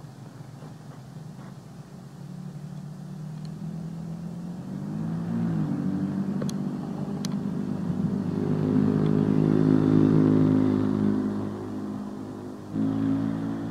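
A motor vehicle engine running, its pitch rising about five seconds in and its sound building to a peak around ten seconds before easing off, with a sudden rise again near the end.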